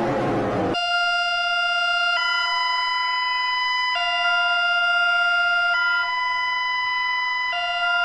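Electronic emergency alert alarm, presented as Bulgaria's: a steady two-pitch tone that switches between a lower and a higher pitch about every two seconds. It starts about a second in, where a harsher, noisier alarm cuts off.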